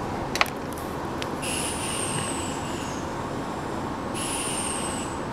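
Nankai Koya Line electric train at a station, a steady running noise with a sharp click about half a second in. Two high whistles, each falling slowly in pitch, sound over it, the first after about a second and a half and the second near the end.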